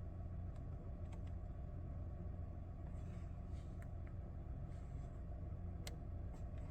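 Steady low hum of a Toyota Camry's idling engine heard inside the cabin, with a few soft clicks of the steering-wheel menu buttons being pressed.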